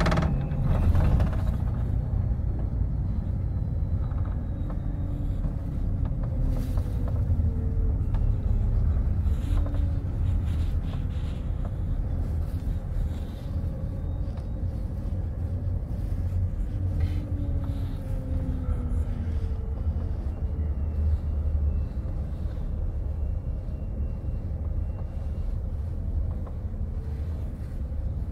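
Double-decker coach driving, heard inside the passenger cabin: a steady low rumble of engine and road noise, with the engine note rising and falling a few times.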